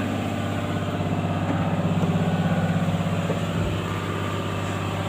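Caterpillar C6.4 six-cylinder diesel engine of a Cat 320D RR excavator running steadily on a test run with freshly replaced injectors, fitted to cure hard starting. Its note swells slightly, then eases and settles about three and a half seconds in.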